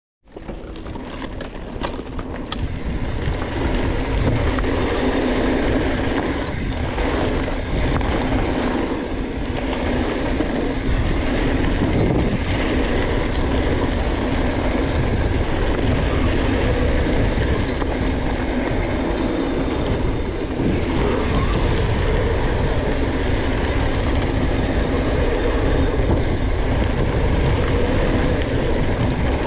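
Mountain bike riding down a gravel flow trail: a steady rumble of knobbly tyres rolling over loose gravel, mixed with wind rushing over the microphone. It builds over the first few seconds as the bike gathers speed, then runs on steadily.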